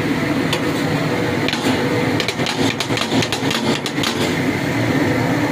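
A steady low mechanical rumble, with a run of sharp clicks between about one and a half and four seconds in.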